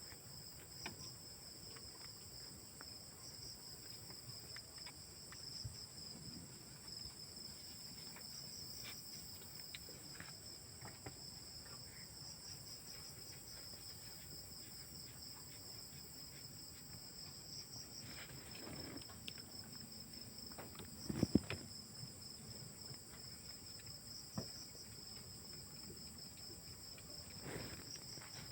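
Insects chirring steadily outdoors in a high, pulsing drone, with scattered faint clicks and a louder low thump a little past two-thirds of the way through.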